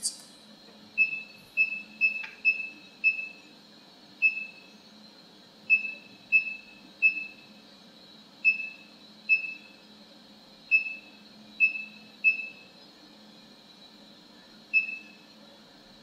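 Keypad beeper of an automatic wire stripping machine's computer controller giving about fifteen short, identical high beeps at uneven intervals, one for each key press as parameters are entered. A faint steady high hum runs underneath.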